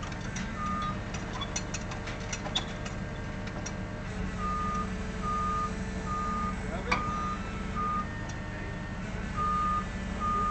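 Reversing alarm beeping at one pitch, roughly one beep every 0.8 seconds, starting a few seconds in, pausing briefly and resuming near the end, over a steady low engine rumble from the Liebherr 32TTR tracked crane being driven off the low-loader. A single sharp knock sounds about seven seconds in.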